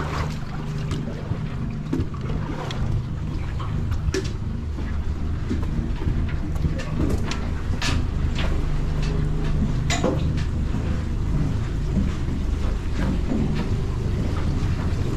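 Small aluminium glass-bottom boat's engine idling with a steady low hum, with footsteps and several sharp knocks on the metal deck and rails.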